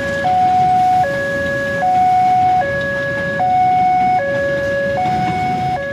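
Railway level-crossing warning alarm sounding its electronic two-tone signal, a lower and a higher tone alternating evenly about every 0.8 seconds, the warning that a train is crossing. Underneath is the low steady noise of a passing passenger train.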